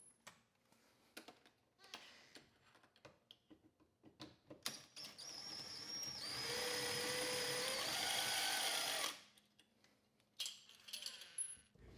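Power drill with an extended Phillips bit running for about four seconds as it backs out the small screws on the back of a doorknob, with a steady whine that drops slightly in pitch after about a second. Light clicks and knocks of handling the bit and the hardware come before and after it.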